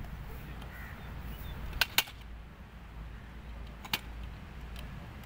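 Aluminium telescopic ladder being extended section by section, its sections locking into place with sharp clicks: two in quick succession about two seconds in and another near four seconds.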